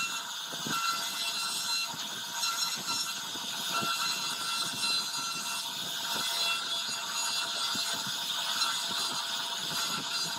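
CNC router spindle whining steadily as its bit carves a relief pattern into a wooden board, with several high tones held throughout and short irregular low knocks.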